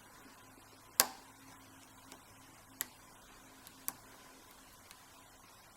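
Lock pick and tension wrench working in the keyway of an American 5200GLKA padlock, giving sharp clicks: one loud click about a second in, then two fainter ones near three and four seconds, with small ticks between.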